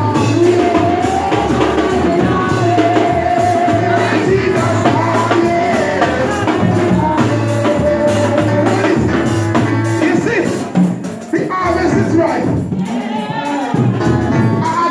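Live gospel music: voices singing a melody over held bass notes and a percussive beat from drums.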